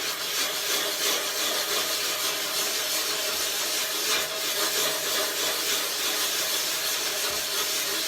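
Coarse side of a sharpening stone scrubbing continuously, a steady gritty rasp of abrasive against metal or stone.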